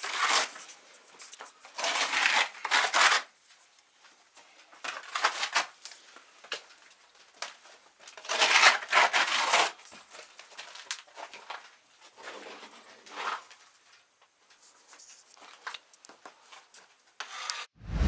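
Trowel scraping and spreading coarse cement-sand mortar on a wall, in irregular strokes about a second long with pauses between.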